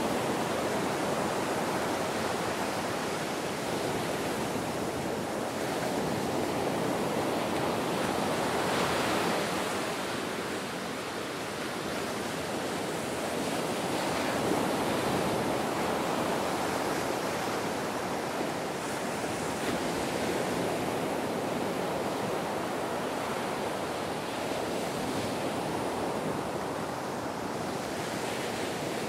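Ocean surf breaking and washing onto a beach: a continuous rushing hiss that slowly swells and eases as the waves come in.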